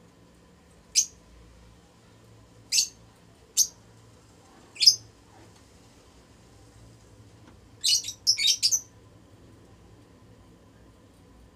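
Lutino Fischer's lovebirds giving short, sharp, high chirps: four single chirps spaced over the first five seconds, then a quick run of several chirps about eight seconds in.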